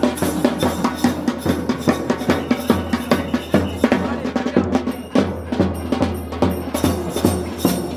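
Temple procession drums played in a fast, dense rhythm of strokes.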